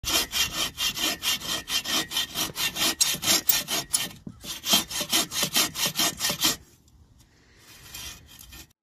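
Hand bow saw cutting through a weathered log, quick even rasping strokes about four a second. There is a short break about four seconds in, and the sawing stops near the end.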